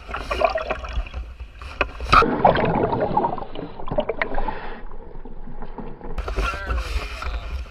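Water splashing and sloshing close to the microphone over a steady low rumble, with many sharp little splashes and knocks; the sound starts and stops abruptly.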